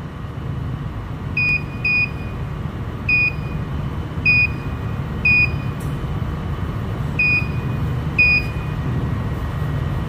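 Handheld addressable fire alarm programmer giving short, high key beeps as its buttons are pressed to enter and write a detector address: seven beeps at uneven intervals. A steady low hum runs underneath.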